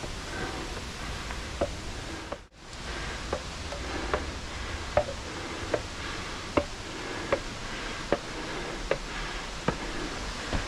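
A hiker's footsteps on a steep rocky path, a sharp step about every three-quarters of a second, over the steady rush of a mountain stream. The sound drops out briefly about two and a half seconds in.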